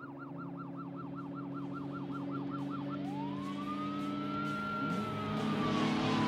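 Police car siren: a fast yelp warbling about five times a second, which switches about three seconds in to a slow wail that rises, holds, then slowly falls.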